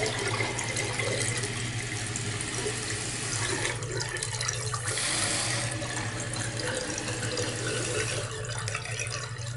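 Fill valve (ballcock) of a newly installed American Standard Champion 4 toilet running, a steady hiss of water pouring into the nearly full tank. The valve has not yet shut off because the water level is set too high, which the installer then corrects with the level adjustment knob.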